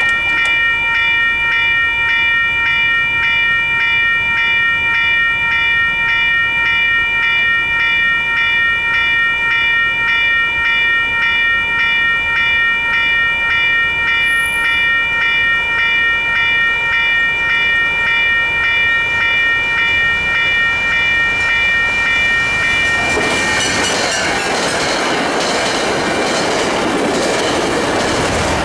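Railroad grade-crossing warning bell ringing steadily. From about 23 seconds in, the noise of an MBTA commuter train, a cab car leading, builds over the bell as the train rolls through the crossing.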